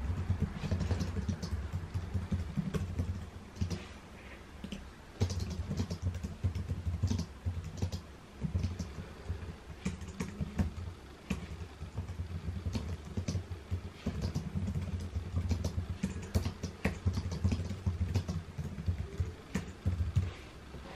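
Typing on a computer keyboard: runs of quick keystroke clicks with short pauses between them.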